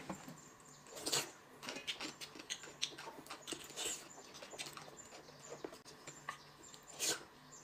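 A person eating at a table: close chewing and mouth sounds, with scattered small clicks and taps of utensils and dishes.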